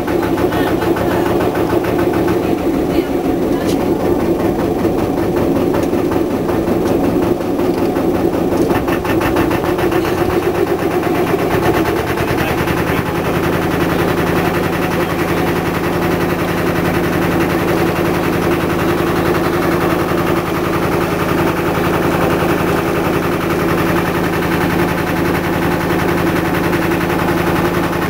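Canal trip boat's inboard engine running steadily under way, a loud continuous rapid knocking with a steady hum; its tone shifts slightly about twelve seconds in.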